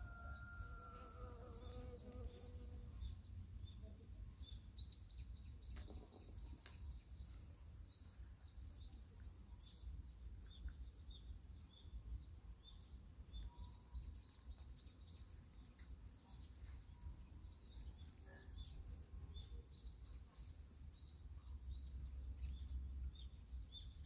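Outdoor garden ambience: faint high chirps repeating about twice a second, with short high trills every few seconds, over a low rumble that grows louder near the end.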